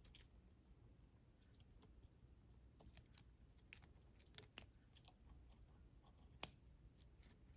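Faint, scattered small clicks and taps of metal on metal as the tiny parts of a vintage Necchi sewing machine's upper thread tension assembly are worked loose with a pin, with one sharper click about six and a half seconds in.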